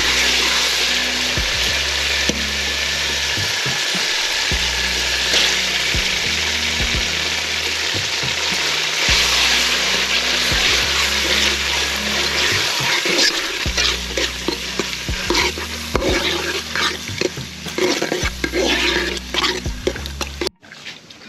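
Blended tomato puree sizzling in hot coconut oil in a metal pan, stirred with a metal spoon that clinks and scrapes against the pan, the clinks coming more often in the second half. The sizzle cuts off suddenly near the end.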